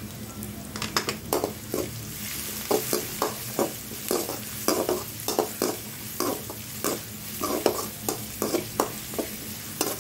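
Chopped shallots sizzling in hot sesame oil in a metal kadai, frying towards golden, as a perforated metal ladle scrapes and stirs them. The scraping strokes start about a second in and come about two or three a second.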